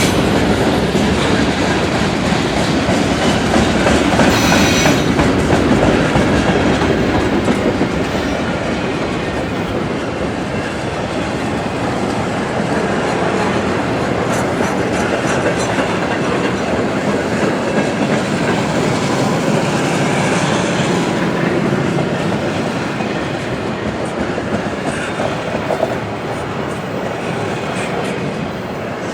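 Freight train cars rolling steadily past, with continuous steel-wheel-on-rail noise and a brief high-pitched screech about four seconds in. The noise eases slightly toward the end.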